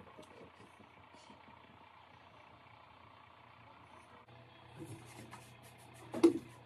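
Light handling knocks over a faint steady low hum, then one sharp, loud knock near the end.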